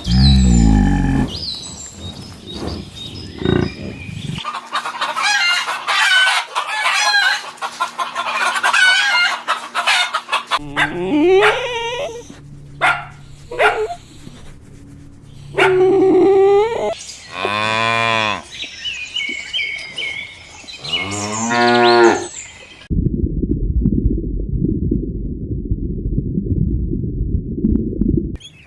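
A sequence of farm animal calls in separate clips: cattle mooing and chickens calling. Near the end comes a few seconds of low rumbling noise that stops abruptly.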